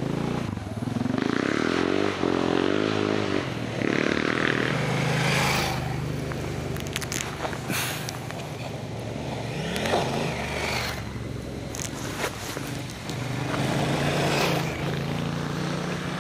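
Honda Africa Twin twin-cylinder adventure motorcycles riding past on a dirt track, engine pitch rising and falling as they accelerate, about a second in and again near the end. Scattered clicks and scrapes from the dirt and stones under the tyres.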